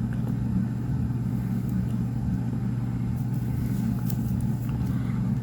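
A steady low mechanical hum with a rumble under it, and a few faint clicks.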